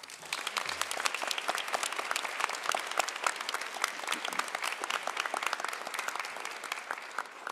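Audience applauding, many hands clapping together; the applause starts at once and fades out near the end.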